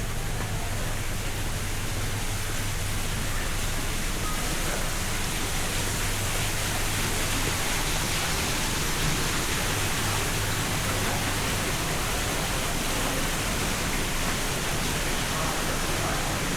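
Steady, even rushing noise with a low hum beneath it, unchanging throughout.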